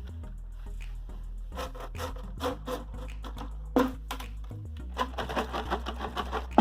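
Background music with a steady bass line changing note every second or two, with a run of short, sharp scraping strokes over it, coming faster near the end.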